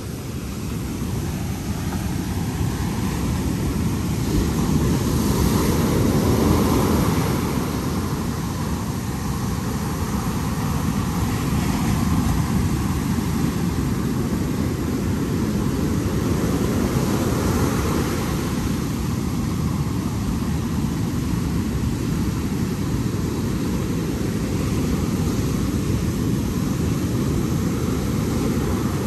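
Sea waves breaking on a beach: a steady low rush that swells every several seconds as sets of surf come in.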